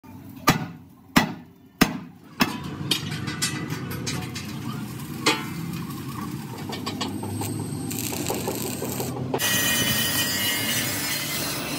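A sledgehammer strikes a steel plate four times, about two-thirds of a second apart, each blow ringing. Mixed workshop clatter follows, and from about nine seconds in a gas cutting torch hisses steadily as it cuts steel.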